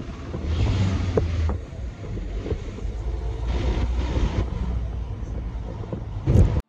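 Car cabin noise while driving: a steady low rumble of engine and tyres with rushing road and wind noise that swells twice. A brief louder thump comes near the end.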